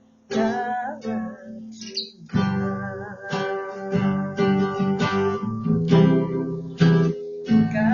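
A voice sings the last word of a hymn line over acoustic guitar. Then the guitar strums chords alone for the rest.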